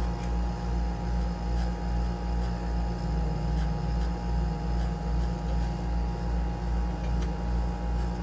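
Steady low mechanical hum, pulsing evenly about two to three times a second.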